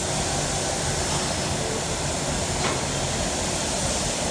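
Steady rushing machinery noise of a running injection-moulding shop floor, with a faint steady hum under it and a brief click a little past halfway.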